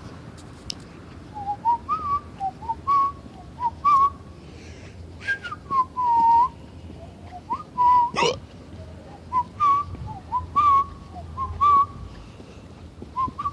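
A person whistling a tune in short, gliding notes, broken once by a sharp hiccup about eight seconds in.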